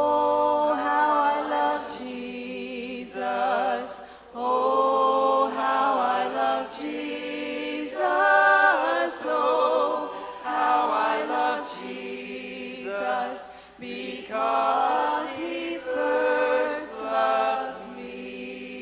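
A church choir and a woman lead singer on a microphone singing together in phrases with vibrato, backed by an acoustic guitar.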